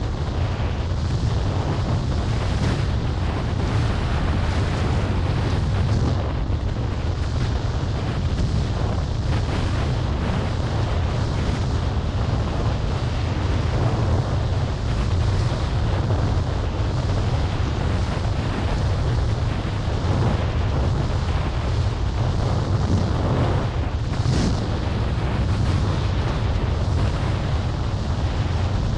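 Wind buffeting the microphone with a steady heavy rumble while windfoiling across the water, over a hiss of rushing water with a few brief brighter splashes.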